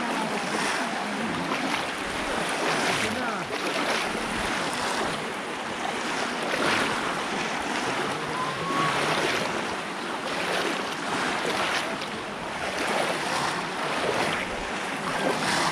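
Water splashing and churning continuously as several people wade chest-deep through a pond, with many short splashes one after another.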